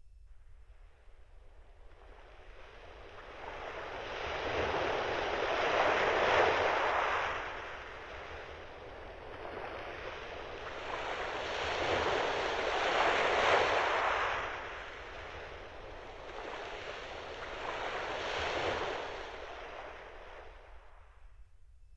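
Casio CT-X9000 keyboard's built-in ocean-waves sound effect: a surf-like rush that swells and falls back three times, each wave building over a few seconds.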